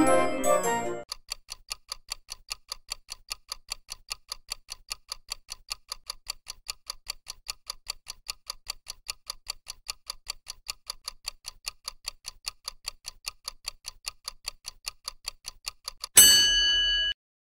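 Countdown-timer clock-ticking sound effect: fast, even ticks, then a loud ringing alarm tone about a second long that marks the end of the countdown and cuts off suddenly. Before the ticking starts, an electronic organ jingle ends.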